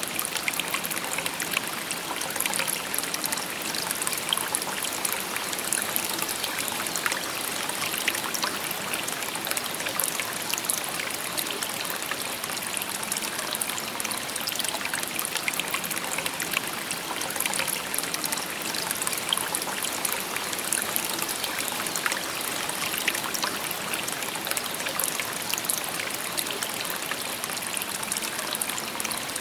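Shallow stream babbling and trickling steadily over stones, a continuous rush of water with many small splashes.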